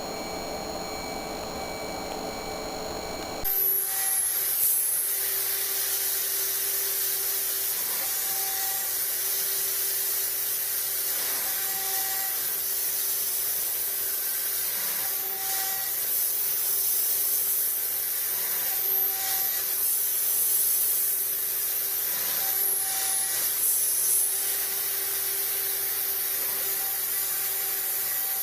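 Mini CNC router's 1 HP spindle engraving steel. A steady whining hum changes abruptly about three and a half seconds in to a louder, higher scraping hiss over a steady whine, with short tones recurring every three to four seconds as the machine moves through the cut.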